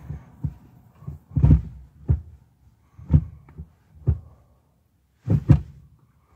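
A series of short, irregular dull thumps and knocks, about seven of them, the last two close together near the end, heard inside a pickup cab.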